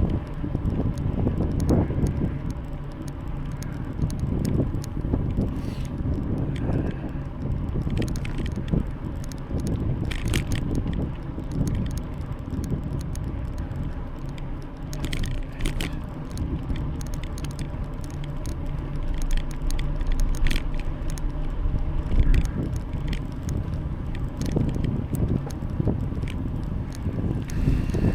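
Bicycle ride: a continuous low rumble of tyres rolling on the road, with scattered small clicks and rattles from the bike.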